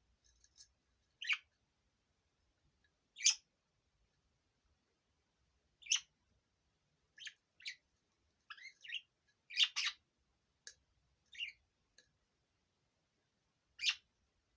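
Budgerigars chirping: about a dozen short, sharp single calls with pauses between them, and a brief wavering run of notes a little past the middle.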